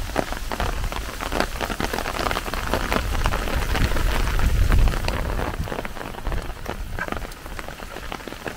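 Heavy rain pattering on surfaces, a dense spatter of drops. Under it a low rumble builds to a peak about five seconds in, then fades.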